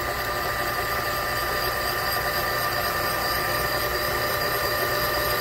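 Winona Van Norman PH6000DA valve-guide machine turning a core drill at about 200 RPM, boring out a worn valve guide in a Mopar 360 cylinder head. A steady machine whine with several held tones over a low hum.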